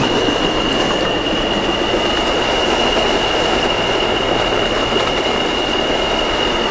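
New York City subway train running, heard from inside the car: steady rumble and rail noise with a thin, high, steady squeal held throughout, typical of wheels squealing against the rail.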